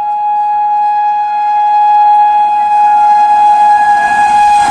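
Air horn of an approaching WAP-7 electric locomotive at speed, sounding one long, steady blast that grows louder as the train nears. It is just beginning to drop in pitch at the very end as the locomotive reaches the camera.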